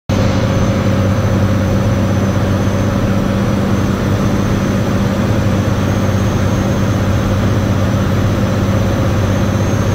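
Steady drone of a light aircraft's piston engine and propeller heard inside the cockpit, with cabin wind noise and a faint high whine, on approach to land.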